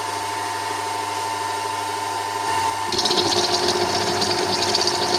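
BF25 milling machine running with a steady motor whine; about three seconds in, the cutter starts taking metal and a louder, higher cutting noise joins in.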